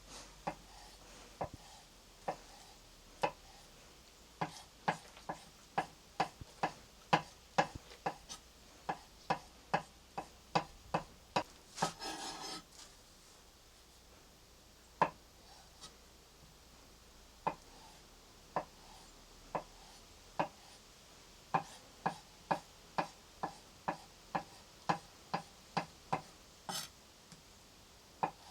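A knife chopping on a wooden cutting board: a long run of sharp knocks, about two a second with a few short pauses, and a brief scrape about twelve seconds in.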